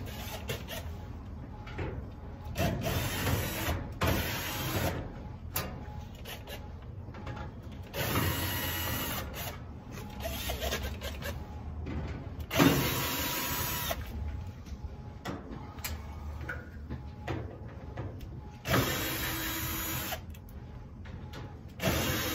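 Cordless drill-driver running in several short bursts of a second or two as screws are backed out of a dryer's cabinet panel, with handling clatter between them and a sharp knock about halfway through.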